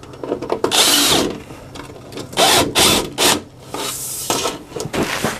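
Cordless drill driving screws through aluminum overflashing into a brick wall's mortar joint, run in about six short, noisy bursts, the longest about a second in.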